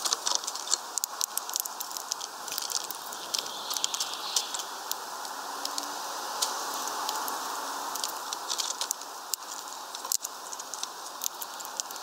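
European greenfinch cracking sunflower seeds and pecking on the feeder tray: irregular bunches of sharp little clicks and ticks over a steady background hiss.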